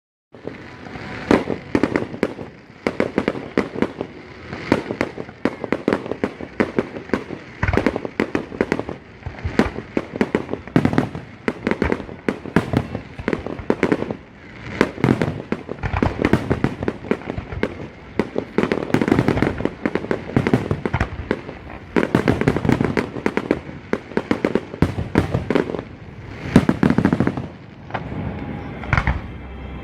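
Aerial fireworks display: a rapid, continuous string of shell bursts and crackling reports, bunched into louder clusters of bangs every few seconds.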